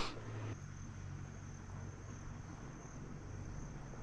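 A faint, steady, high-pitched insect chorus.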